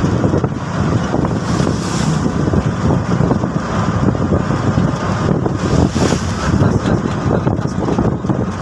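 A TVS King Deluxe three-wheeler's engine is running steadily under way, heard from inside its cab. Road and wind noise are mixed in.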